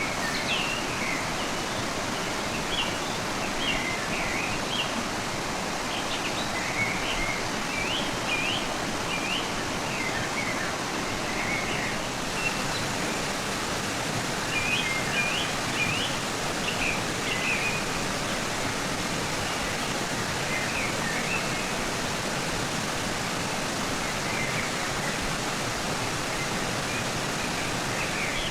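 Rushing river water running steadily, with small birds chirping off and on in quick clusters of short, high notes.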